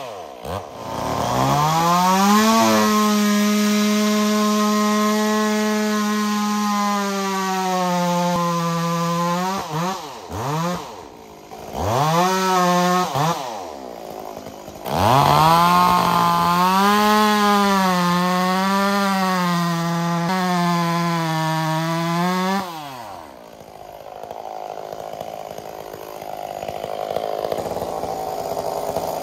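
Stihl 044 two-stroke chainsaw at full throttle cutting through the trunk, its pitch sagging and recovering under load, with the throttle let off and opened again several times. About 23 seconds in, the saw drops away, leaving a steady rushing noise.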